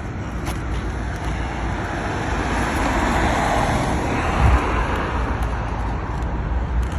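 Rumbling road-vehicle noise that swells and then eases off, with a low thump about four and a half seconds in.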